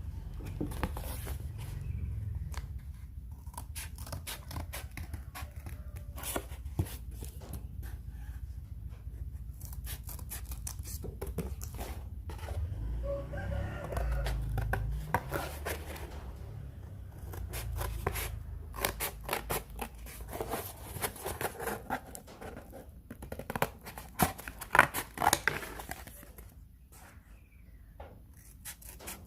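Scissors cutting through cardboard: irregular snips and crunches in runs, with short pauses between them.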